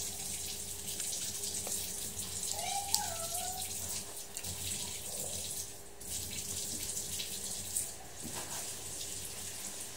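Running water from a tap or shower, a steady hiss that dips briefly twice, about six and eight seconds in.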